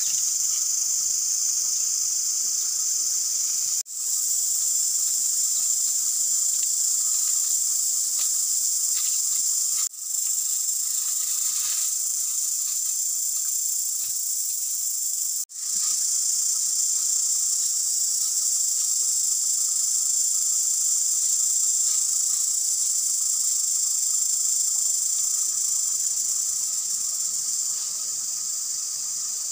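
A loud, steady, high-pitched buzzing chorus of insects, with a fainter, lower whine running beneath it. It breaks off for an instant three times in the first half.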